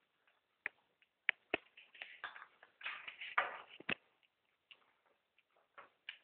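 A white-tufted marmoset eating: scattered sharp clicks and short crunching, rustling noises, busiest in the middle.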